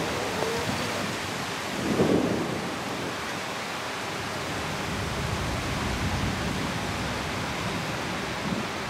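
Steady rushing noise of wind, with a stronger low gust about two seconds in.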